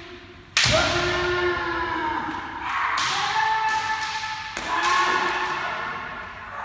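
Kendo practice: bamboo shinai strikes crack sharply on armour three times, each followed by a drawn-out kiai shout from the kendoka, with a hall echo.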